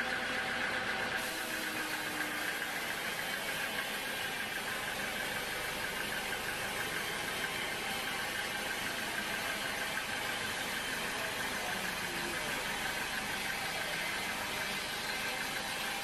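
A vertical band sawmill running steadily, giving off a constant high whine that wavers quickly over a steady machine hum.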